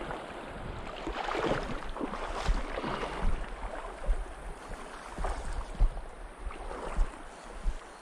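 Shallow mountain stream water rippling and splashing over a cobble bed, with irregular louder splashes. Gusts of wind buffet the microphone with low thumps.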